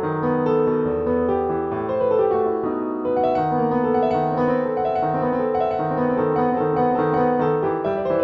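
Solo piano playing classical music: a run of quick, closely spaced notes in the middle register over a lower accompanying line.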